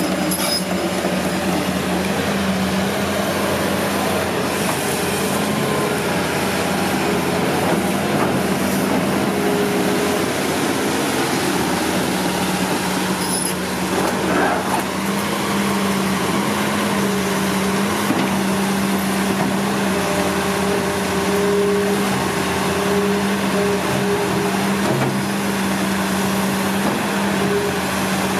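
Hitachi ZX200 crawler excavator's diesel engine running steadily with a constant hum as the boom and bucket push over trees, with a couple of sharp knocks around halfway.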